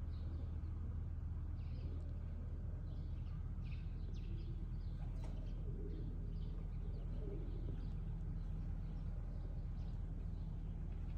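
Small birds chirping in quick, irregular calls over a steady low hum.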